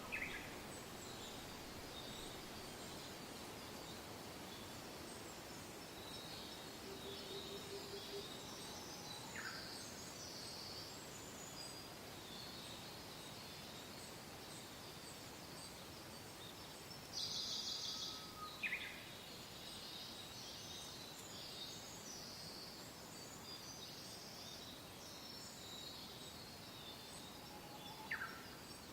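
Soft steady wind with many small birds chirping and singing, including a few short falling notes and a louder dense burst of calls about two thirds of the way through.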